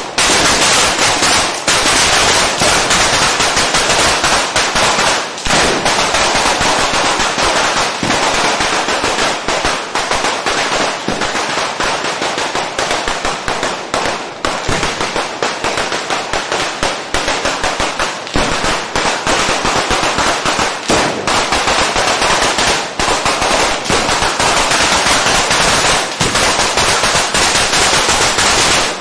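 Fireworks going off in a rapid, almost unbroken rattle of firecracker bangs and crackling while they throw showers of sparks. A few momentary lulls break it.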